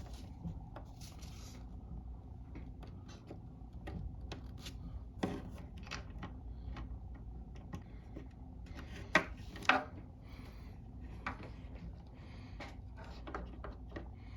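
Faint rubbing and scraping with many small scattered clicks as a screw is driven into the sound-hole pickup controller mount inside an acoustic guitar. Two sharper clicks come close together about nine seconds in.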